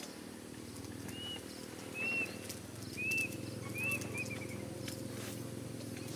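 A bird calling: four short arched whistled notes about a second apart, the last trailing into a few quick shorter notes, over a steady low hum.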